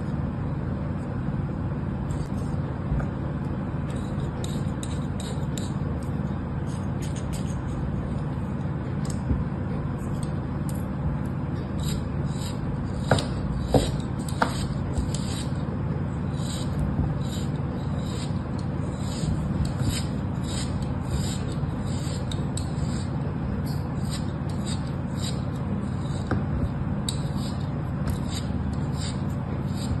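A small knife scraping and cutting through packed kinetic sand, with dense fine scratching and crumbly crunching as chunks break off, and a few sharper clicks about halfway through. A steady low hum runs underneath.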